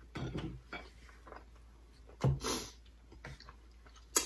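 Eating sounds as pizza is chewed: a few short, separate mouth noises and a sharp click near the end.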